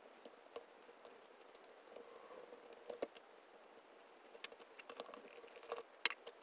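Faint, scattered clicks and small metallic taps of a hex key turning screws out of an airsoft rifle's stock and handling the loose screws. The clicks come more often in the second half.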